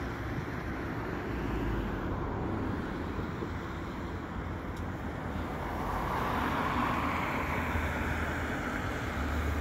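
Road traffic: cars driving past in a steady stream, with one louder pass swelling up about six seconds in and a low engine hum near the end.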